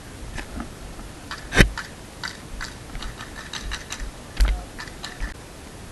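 An irregular patter of short, sharp clicks and knocks over a steady hiss, with two louder knocks, one about one and a half seconds in and one past four seconds.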